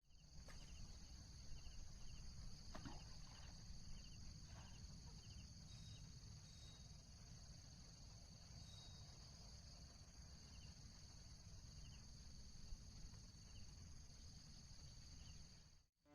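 Faint insects buzzing: a steady high-pitched drone, with short chirps repeating in the first half, over a low rumble.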